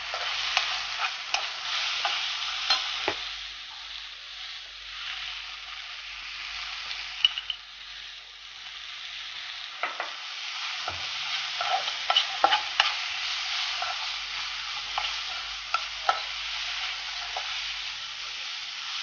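Onion-tomato masala with spice powders sizzling in a non-stick frying pan as a steel spoon stirs it, with scattered scrapes and light clicks of the spoon against the pan.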